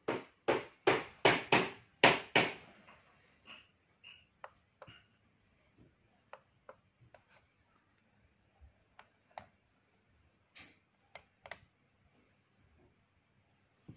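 A run of loud sharp knocks, about three a second, for the first two and a half seconds. Then scattered faint clicks as the small push buttons on the side of a lighted wall frame are handled and pressed.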